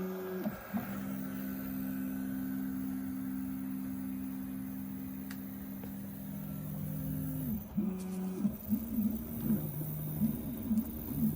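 Stepper motors of a LowRider v3 CNC whining as the machine moves a ballpoint pen across the sheet while plotting: a steady hum of a few notes through a long straight move, then tones that rise and fall quickly as it traces curves, starting about eight seconds in.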